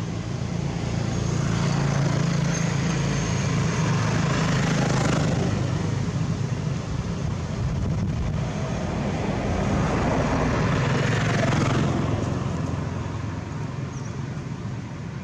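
Motor vehicles passing: a broad rushing noise that swells and fades twice over a steady low engine hum.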